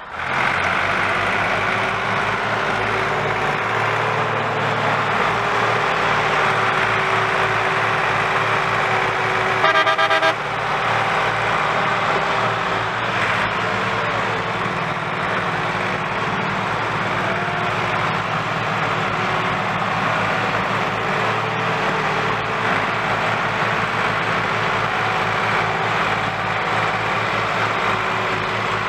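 Two Massey Ferguson diesel tractors running steadily under heavy load as they pull a loaded sugarcane trolley. A horn sounds once, briefly, about ten seconds in.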